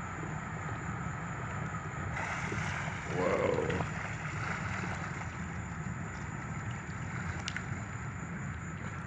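Steady low wind rumble on the microphone with a continuous hiss of outdoor noise; a man exclaims "whoa" once about three seconds in.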